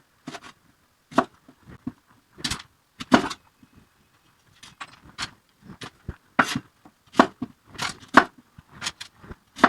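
Kitchen knife knocking on a cutting board as a pear is cut into small pieces: irregular sharp knocks, about two a second.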